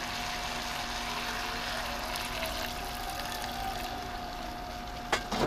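Water poured in a steady stream into a wok of simmering noodles and broth, topping up the soup as it boils down. There are a couple of light knocks near the end.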